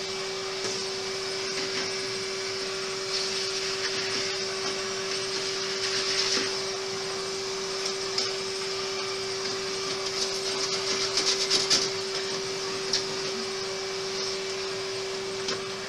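Henry canister vacuum cleaner running with a steady hum and hiss as its nozzle sucks caked dust out of a desktop PC case, with scattered clicks and rattles of the nozzle and debris that are busiest about eleven to twelve seconds in.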